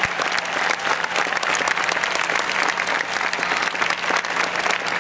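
A large crowd applauding steadily, a dense patter of many hands clapping at once.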